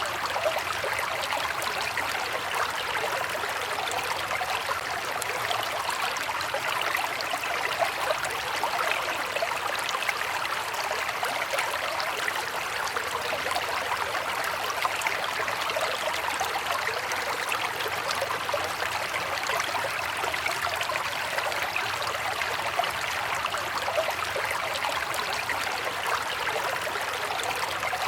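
River water flowing over rocks: a steady, even rush of running water with fine splashing and gurgling.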